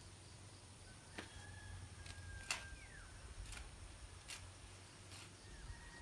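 A distant rooster crowing once: a thin, drawn-out call that falls away at the end, over faint low rumble. A few faint, sharp clicks are scattered through it.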